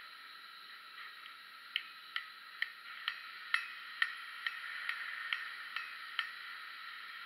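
Hand hammer striking a glowing hot steel flower blank held in tongs on an anvil: about a dozen sharp taps, roughly two a second, starting a couple of seconds in, some with a short metallic ring, over a steady hiss.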